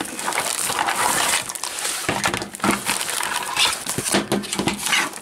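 Plastic mailer bag crinkling and rustling as it is handled, with several sharp knocks in the second half as black plastic AC adapter bricks and their cords are pulled out and set down.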